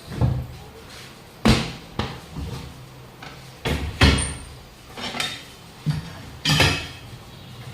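Irregular metal knocks and clanks of hand tools working a 7.00 R15 tyre on its steel wheel rim, about eight strikes, some ringing briefly.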